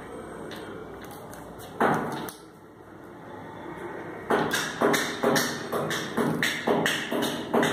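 Handling noises from tying feathers and cord onto a cord-wrapped craft ring: one sharp scrape-like burst about two seconds in, then a quick run of about ten short knocks and rustles, two or three a second, in the second half.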